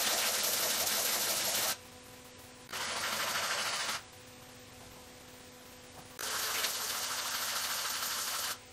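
Weber 40 IDTP accelerator pump cover being rubbed on abrasive paper over a flat plate: three spells of gritty sanding noise, each one to two seconds long, with short pauses between. The cover's mating face is being lapped flat, because over-tightened bolts bow the face and it leaks.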